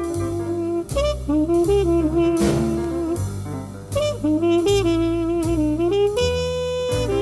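Jazz trumpet playing a slow ballad melody in long held notes with small bends and slurs, over bass and drums.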